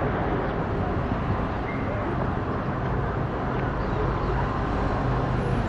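Steady road-traffic rumble, a low continuous hum of passing vehicles.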